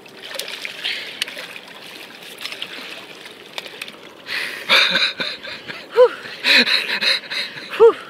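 Water splashing and sloshing as a large hooked fish thrashes at the surface beside the boat while it is netted. The splashing is a soft hiss at first and grows loud and choppy about halfway through.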